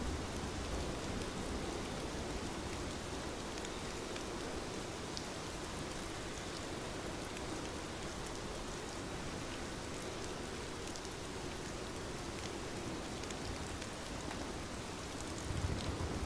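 Steady rain falling, with individual drops ticking over the even hiss. A low rumble swells briefly near the end.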